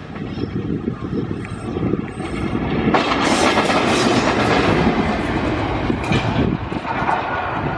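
WDG4G diesel-electric locomotive running light: a steady engine rumble, joined about three seconds in by loud wheel-and-rail clatter as it passes close, easing off again near the end.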